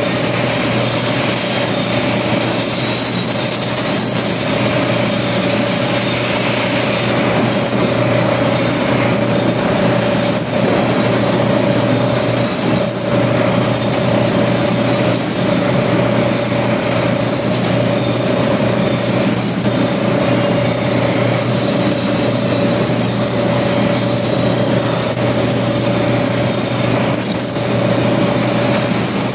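Electric chicken-cutting machine with a circular blade running steadily: a loud, constant machine whine with one steady mid-pitched tone, and a few faint brief knocks as chickens are fed through and cut into pieces.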